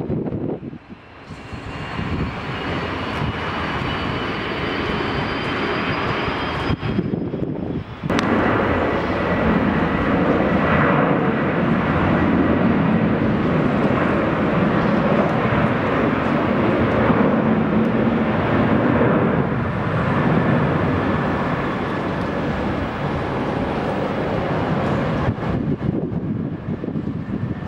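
Boeing 737-800's twin CFM56-7B jet engines at takeoff thrust during its takeoff roll: a loud, steady jet noise with a faint rising whine in the first seconds. The opening second holds the tail of an Airbus A350-900 climbing away.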